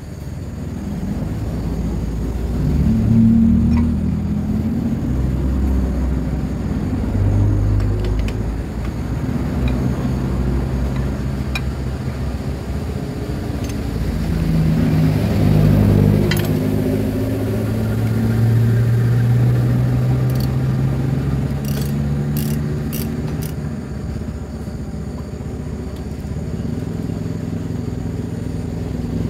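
Heavy diesel engine turning with a low, continuous rumble, its pitch drifting up and down.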